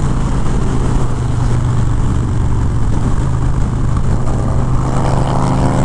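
Harley-Davidson Fat Bob 114's Milwaukee-Eight V-twin running steadily at freeway speed, with a steady low hum under heavy wind rush. A faint rising note comes in near the end.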